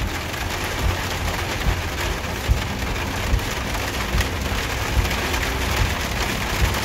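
Heavy rain drumming on a Jeep Wrangler's roof and windshield, heard from inside the cab: a steady hiss with scattered low thumps.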